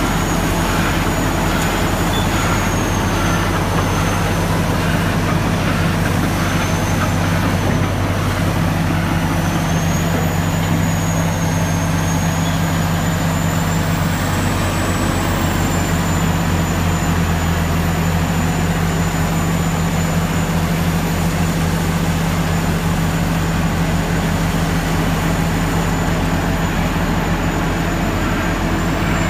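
Cat D9T track-type bulldozer's diesel engine working under load as it pushes coal on a stockpile, a steady low drone that holds constant, with a faint high whine drifting slowly up and down in pitch.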